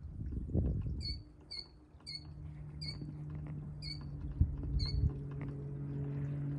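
A small animal, bird or ground squirrel, gives six short, sharp, high chirps, one every half second or so, ending about five seconds in. A steady low hum runs underneath, with a couple of dull thumps near the start and in the middle.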